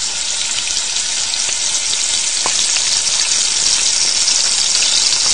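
Bolognese sauce sizzling steadily in a wok, a dense hiss that grows slightly louder toward the end.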